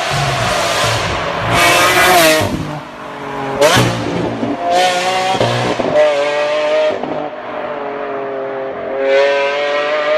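Lamborghini engine revving several times, its pitch climbing and dropping with each rev, with a sharp quick rev about three and a half seconds in.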